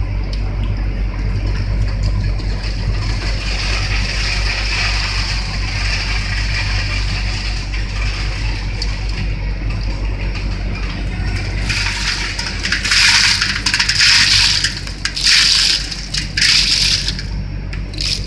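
Fried-bean production line machinery running: a steady electric motor and conveyor hum. Near the end come several loud rushing, hissing bursts with short gaps between them.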